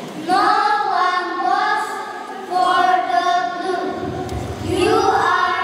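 A group of young children reciting a poem in unison in a chanted, sing-song cadence, in phrases of a second or two with short breaks between them.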